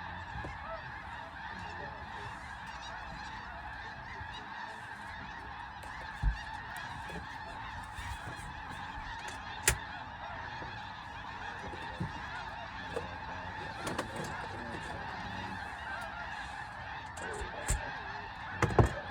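A large flock of snow geese calling all at once in a dense, unbroken clamor as they circle down. A few short sharp knocks stand out above it.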